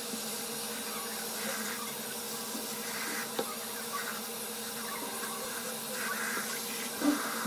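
Water running steadily from a sink tap into the basin, filling the sink.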